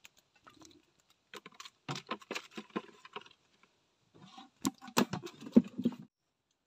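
Close handling noise: two flurries of rapid clicks and taps, the first about a second in and the second around four seconds in, with a few sharper clicks near the end of the second flurry.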